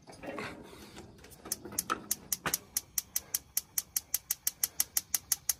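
Gas grill's electronic spark igniter clicking rapidly and evenly, about five clicks a second, beginning about a second and a half in. The burner does not catch; the owner puts this down to too much water left in the grill from pressure washing.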